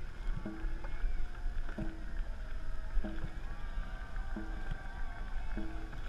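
Dragon boat drum struck in a steady rhythm, about one beat every 1.3 seconds, five beats in all, pacing the paddlers' strokes. Paddles churn the water under a steady low rumble of wind on the microphone.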